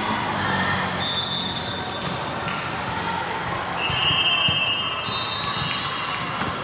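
Busy sports-hall noise: volleyballs bouncing and being hit on the court, with scattered voices. Several high, steady squeaks of about a second each sound over it, two of them close together in the second half.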